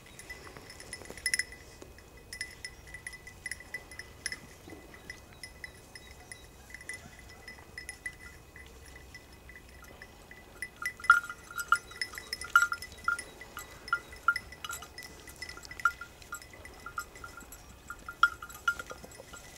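A small bell on an English setter's collar clinking irregularly as the dog moves through the brush, louder and busier from about halfway through.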